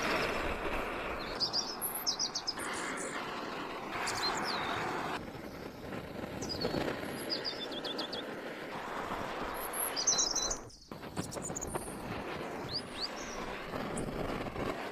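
Small birds chirping and trilling again and again over the steady hiss of a handheld butane torch's flame; the hiss changes abruptly several times and briefly drops out about two-thirds of the way through.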